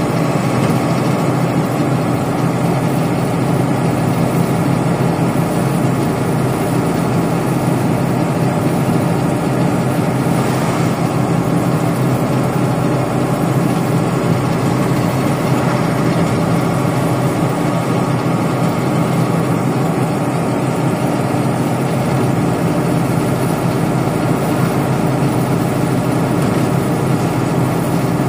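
Steady engine drone and tyre-on-asphalt road noise heard from inside a moving vehicle on a highway, with a brief swell of hiss about ten seconds in.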